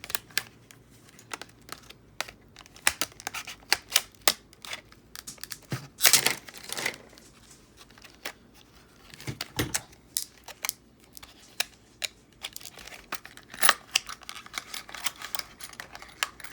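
A padlock's retail packaging being opened by hand: irregular clicks and plastic crinkling, with longer tearing stretches about six and nine and a half seconds in.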